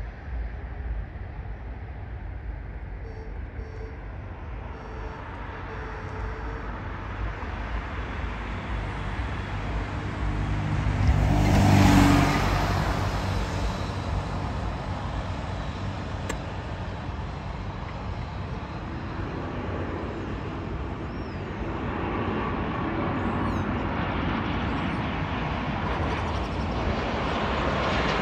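Wind buffeting the microphone over a steady outdoor rumble; a vehicle passes close about twelve seconds in. From about twenty seconds the rising whine and rumble of an approaching airliner on final approach grows louder.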